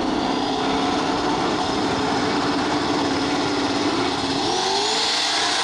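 Car engine running at a steady speed, then revving up about four and a half seconds in.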